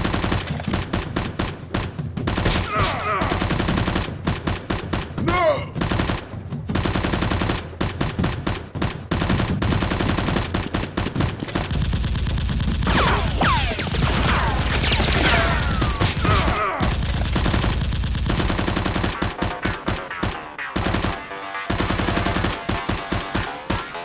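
Rapid automatic gunfire sound effects: long strings of shots fired in quick succession, dubbed over toy-blaster fire.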